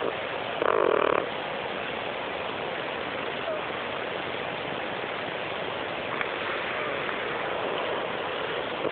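Domestic cat snoring in its sleep, with one louder snore about a second in, over a steady hiss.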